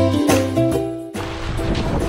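Background music that stops suddenly about halfway through, giving way to the wash of small waves breaking on the shore.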